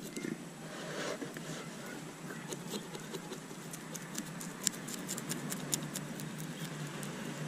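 Knife blade scraping scales off a sunfish: a quick, irregular run of short scratchy clicks.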